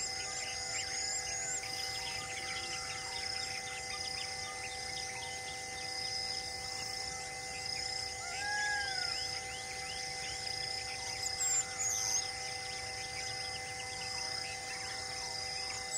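Bush ambience of insects buzzing steadily, with repeated high bird chirps and a couple of whistled bird calls, one about halfway through. A brief louder flurry of chirps comes near the end.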